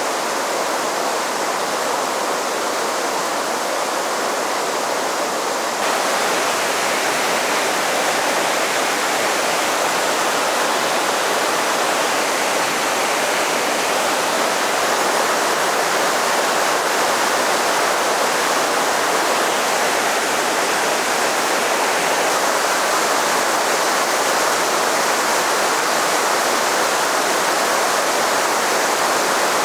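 Steady rush of a fast mountain river tumbling over boulders in whitewater rapids. It turns slightly louder about six seconds in.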